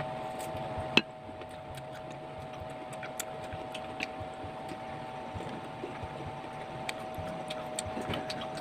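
Eating sounds: bites and chewing of sliced green mango, with scattered small clicks and one sharp click about a second in. A steady two-tone hum runs underneath.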